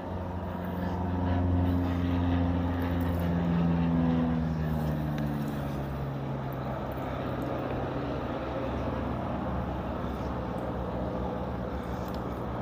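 Water poured from a jug running down a chainsaw-carved wooden waterfall, with low tones that slide slowly downward. The sound is loudest in the first few seconds and then carries on more evenly.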